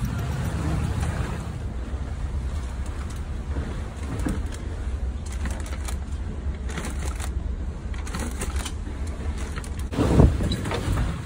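Wind buffeting the microphone aboard a sailing catamaran under way, a steady low rumble with scattered faint knocks. A louder bump comes about ten seconds in.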